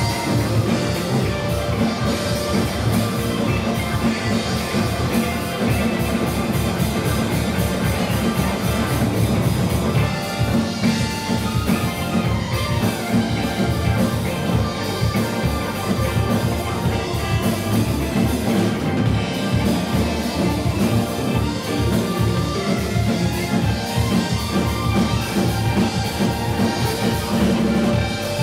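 Live band playing with a steady beat: drum kit, electric bass, electric guitar and keyboards, heard in the room.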